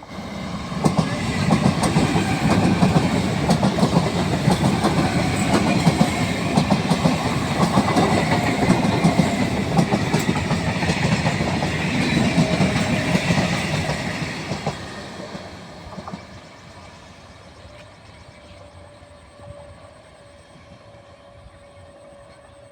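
An Indian Railways train passing at speed close by: a loud rumble with rapid wheel clatter over the rail joints, which dies away after about 14 seconds as the train recedes.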